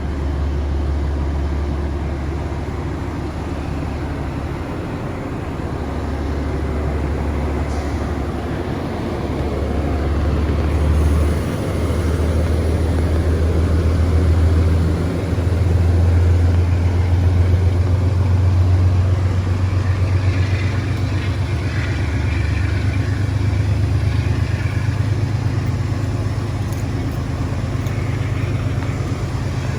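A Metro-North train's deep, steady, engine-like hum, swelling a little about halfway through.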